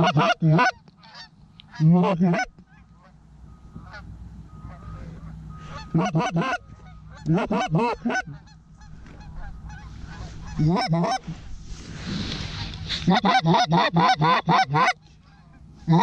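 Loud, close goose honking and clucking in short rapid runs of several notes, repeated in clusters every few seconds. A gust of wind rushes across the microphone about twelve seconds in.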